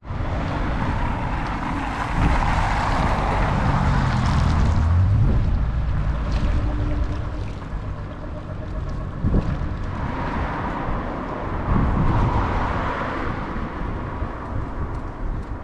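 Wind rumbling on an action camera's microphone outdoors, with the engine noise of passing motor traffic swelling a couple of seconds in.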